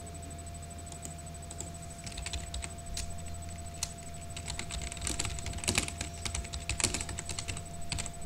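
Typing on a computer keyboard: scattered key clicks at first, then a quick run of keystrokes over the last few seconds. A steady electrical hum runs underneath.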